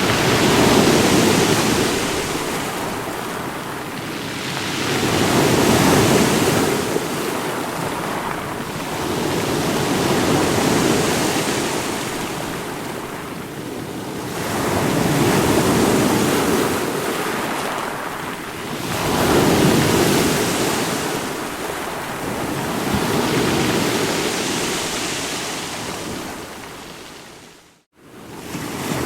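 Rushing water, surging and ebbing in slow swells every four to five seconds like surf washing in, with a sudden brief cut-out near the end.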